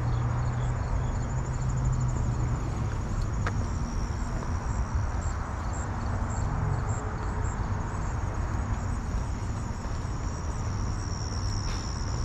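Insects trilling outdoors in summer: a thin, high pulsing song of about three pulses a second that becomes a steadier, louder trill near the end, over a steady low rumble.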